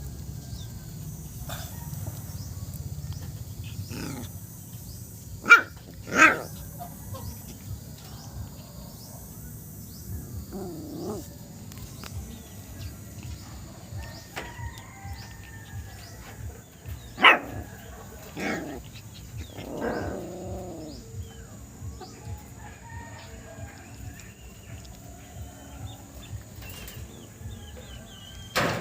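Small dog yapping in short sharp barks: a pair about five seconds in, another pair past the middle followed by a short whiny yelp, and one more near the end.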